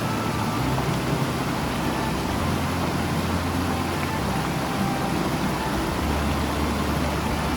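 Mountain stream water rushing over rocks in a steady, even wash of noise.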